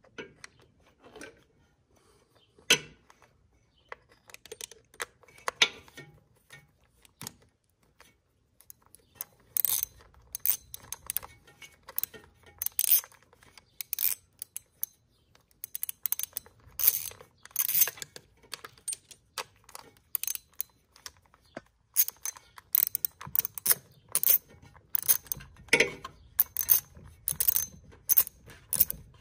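Socket ratchet on a long extension clicking in quick runs as it is worked back and forth on the ignition coil's bolt. The first several seconds hold only a few scattered clicks and knocks; from about ten seconds in, the clicking comes in rapid bursts.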